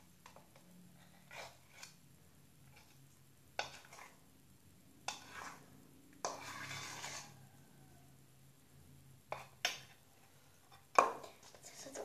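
Scattered clinks and knocks of a utensil against a bowl while homemade flour slime is mixed, with a scraping stir lasting about a second midway and the sharpest knock near the end.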